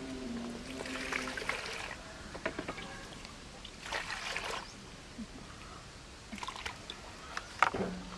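Water scooped and poured with a plastic dipper from a plastic tub, splashing about a second in and again about four seconds in, with small plastic knocks between and a sharp knock near the end.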